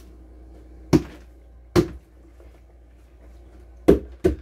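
Hollow knocks of plastic tubs and containers being handled and set down: two single knocks about a second apart, then a quick run of knocks near the end.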